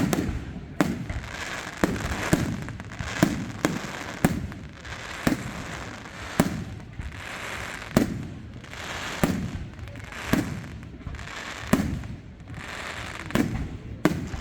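Aerial fireworks display: loud shell bursts going off about once a second in a steady run, with crackling and hiss between the bangs.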